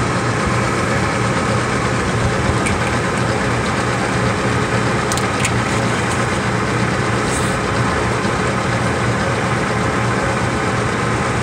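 Steady, loud machinery hum running throughout, with a few light clicks and taps over it.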